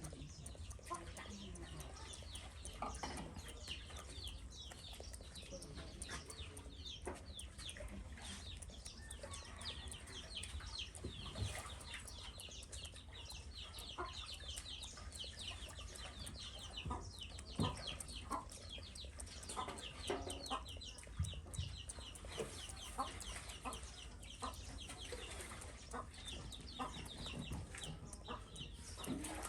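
Chickens peeping and clucking: many short, high, falling chirps in quick succession, with scattered sharp clicks.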